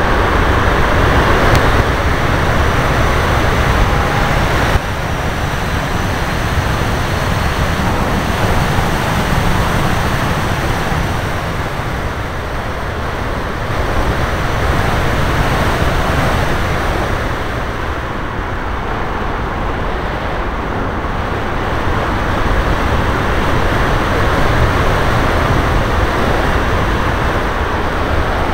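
Loud, steady rushing of air over the microphone of a motor glider's onboard camera as the glider glides low and lands on grass. The noise drops suddenly about five seconds in.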